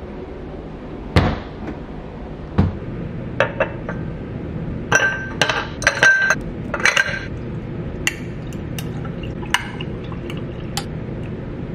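Two dull knocks, then ice cubes dropped from an ice cube tray into a drinking glass, clinking and ringing one after another, with a few more scattered clinks later on.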